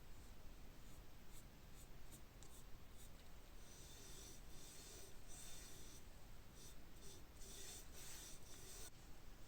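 Faint scratchy rubbing in short strokes, with a few light ticks before it starts.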